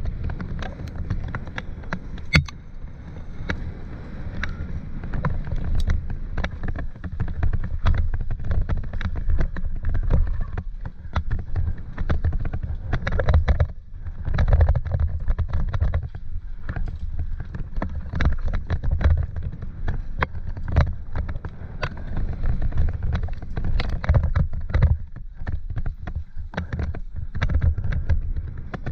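Mountain bike riding down a dirt trail, heard from a helmet-mounted camera: a steady low wind rumble on the microphone, with frequent sharp clicks and knocks as the bike rattles over bumps.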